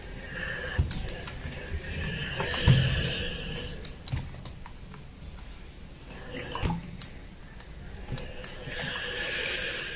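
Steam iron pressed and slid over fabric on an ironing board, fusing interfacing: spells of hissing, with a few knocks as the iron is set down, about one, three and seven seconds in.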